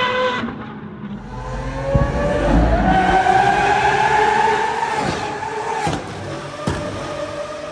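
Lamborghini Aventador SVJ V12 with a Gintani F1 exhaust revving up under acceleration, its note climbing and then holding. The note drops off as the throttle is lifted, followed by two sharp exhaust cracks about a second apart.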